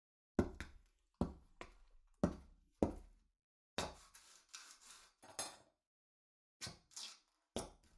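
A barber's tools being handled and set down: a series of sharp knocks and light clinks, with a longer scratchy noise around the middle.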